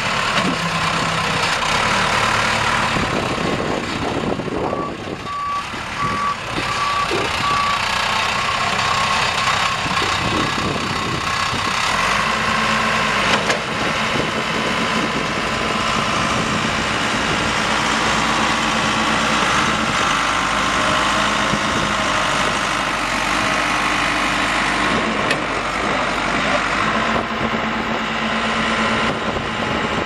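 Diesel engine of a 1995 Case 580 Super L backhoe (Case 4T-390) running steadily as the machine drives about. Its reverse alarm beeps in a short run of about five beeps, some five seconds in.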